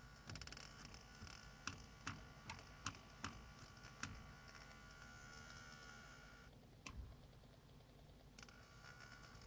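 Faint steady whistling tone over a low hum, with several light clicks, most of them in the first half and one near the end.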